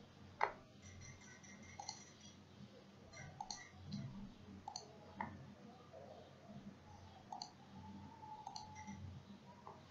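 Faint computer mouse clicks now and then, with a sharper click about half a second in.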